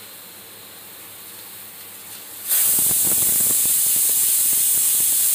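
Pigeon pressure cooker's weight valve letting off a whistle: a faint hiss of steam, then about two and a half seconds in a sudden loud, steady blast of escaping steam with the weight fluttering, the sign that the cooker has come up to full pressure.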